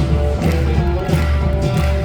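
Live band music from an up-tempo southern gospel song, with heavy bass and a steady drum beat.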